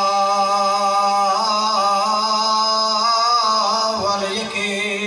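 A man chanting the Arabic opening of a Shia sermon, drawing one long, wavering note out for about four seconds before moving into a new phrase.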